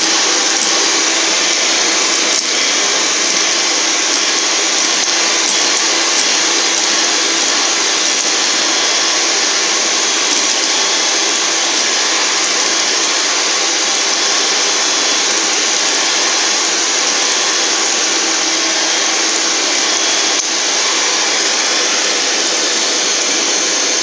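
Electric hand mixer running steadily at one speed, its twin wire beaters whisking a thin mixture of softened dates, date jaggery and oil in a glass bowl.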